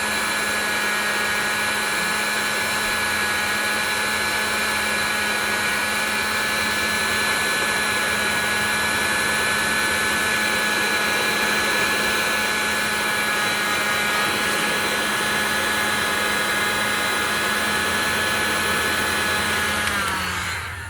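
Industrial heat gun running steadily, its fan blowing with a steady whine while it heats heat-shrink tubing over a wire joint. Near the end it is switched off and the whine slides down and fades.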